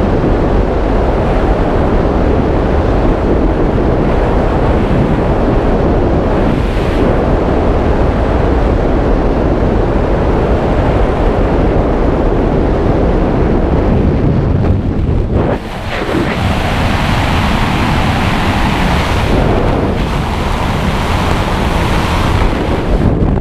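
Skydiving freefall wind rushing over a helmet camera's microphone, a loud steady roar of air. About two-thirds of the way through it drops suddenly and carries on as a lighter, higher hiss.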